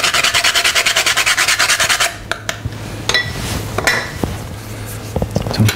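Nutmeg grated on a small hand grater: quick, even rasping strokes that stop about two seconds in, followed by a few light knocks and taps.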